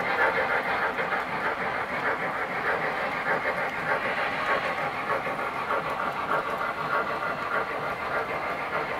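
Steady running noise of O-gauge model steam locomotives on the layout's track: wheels rolling on the rails and locomotive motors running as the MTH Southern Pacific GS-4 comes round the curve.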